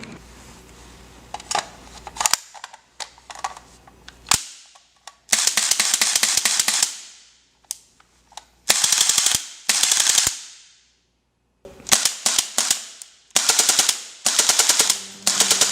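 GBLS DAS M4A1 airsoft electric gun firing: a few single shots, then several full-auto bursts of rapid shots, each about one to two seconds long.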